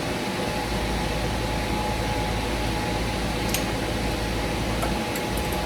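Steady mechanical hum of background machinery, with a faint click about midway through.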